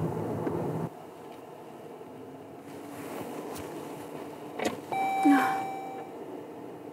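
Road noise inside a moving car's cabin that stops suddenly about a second in. Then a sharp click is followed by a steady electronic car chime lasting about a second, over a short rush of noise.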